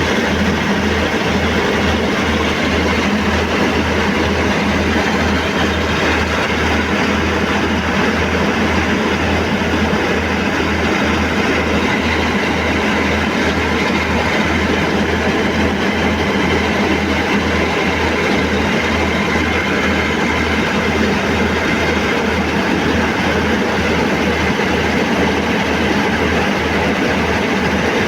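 John Deere combine harvester running steadily, its engine and machinery making a continuous loud drone with a low, even pulse of a few beats a second.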